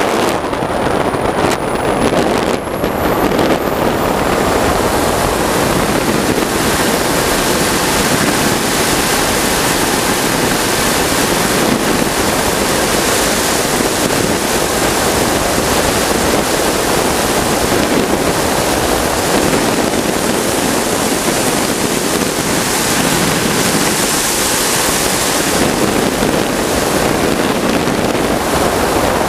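Model jet's gas turbine running at high power under heavy rushing air noise, a steady loud roar. A thin high whine climbs in pitch and fades out about two seconds in.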